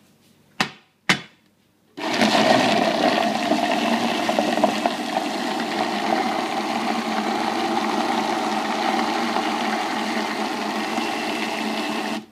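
Countertop blender motor whirring steadily as it purees a thick wet mix of boiled chicken breast and soaked kibble, the chicken loading the motor down. Two brief pulses under a second in, then the motor starts about two seconds in, runs, and cuts off suddenly near the end.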